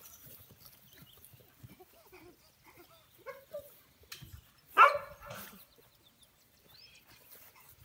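An American bully puppy barking once, a short bark about five seconds in.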